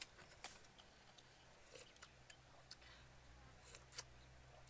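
Quiet eating sounds: a spoon and mouth working at a bowl of soup, giving a handful of faint, sharp clicks, the clearest about half a second in and near the end.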